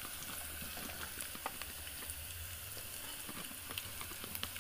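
Chopped onions sizzling in hot oil in an aluminium pot, a steady hiss, while a wooden spoon stirs them with a few small scrapes and knocks against the pot.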